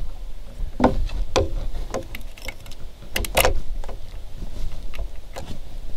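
Plastic electrical connectors being handled: a series of short clicks and scrapes as the cap comes off an outboard engine's diagnostic port and the diagnostic cable's plug is pushed into it.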